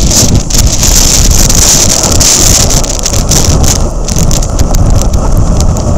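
Strong wind buffeting the microphone with a heavy, gusting rumble, over the hiss of rough surf, which eases about three and a half seconds in.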